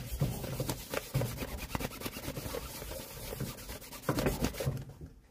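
A cloth being rubbed briskly by hand over a new leather shoe sole, buffing it in quick back-and-forth strokes that stop near the end.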